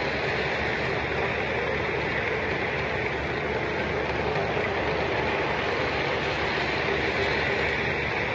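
A long string of O gauge model freight cars rolling past on three-rail track: a steady rumble and clatter of metal wheels on the rails.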